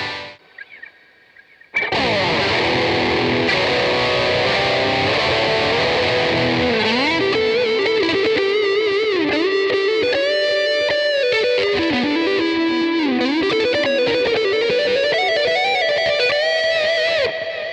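Electric guitar played through a Boss GT-3 multi-effects processor on a distorted preset. A chord rings out about two seconds in, and a single-note lead line with string bends follows. It stops shortly before the end.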